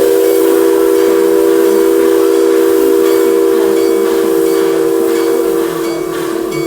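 Steam locomotive whistle sounding one long, steady blast of two notes held together, over a hiss of steam, easing slightly near the end.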